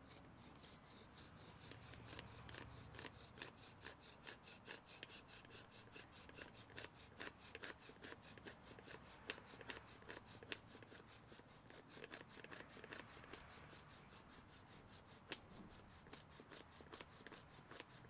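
Bow drill being sawed back and forth: a wooden spindle spinning against a wooden fireboard, its top held in a Swiss Army Knife fitted with a ball bearing. It gives a faint, steady rhythm of quick rubbing, scraping strokes with a few sharper clicks, the friction building heat for a fire ember.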